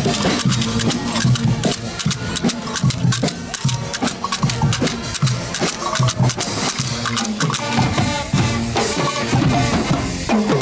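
Loud party music with a fast, driving drum beat and low pitched notes underneath.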